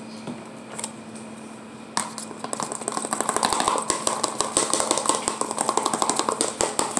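Spoon stirring quickly in a plastic bowl of slime mixture: a fast, steady run of clicks and scrapes that starts about two seconds in.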